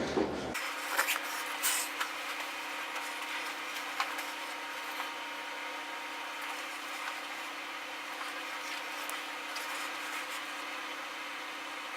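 Steady room noise with a faint constant hum, and a few soft clicks and knocks in the first few seconds.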